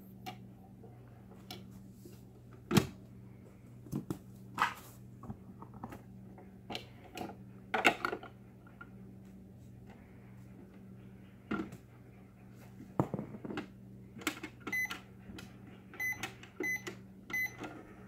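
Hard plastic knocks and clatter as play food and the door of a Just Like Home toy microwave are handled, then four short electronic beeps in the last few seconds as its keypad buttons are pressed.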